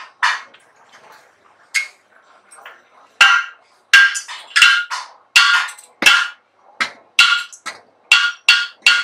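Repeated sharp metal clanks, each with a short ring, as a clutch pressure plate and flywheel are knocked and handled: a couple early on, then a steady run of roughly one to two a second from about three seconds in.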